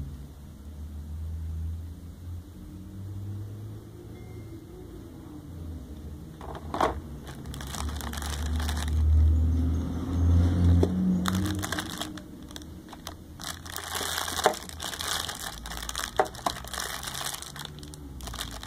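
Thin plastic packaging crinkling and crackling as bagged accessories are handled in a clear plastic blister tray, starting about a third of the way in and growing busier near the end, over a low rumble.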